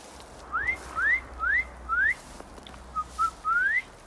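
A person whistling to call cats: four quick rising whistled notes, then two short low notes and a longer rising note near the end.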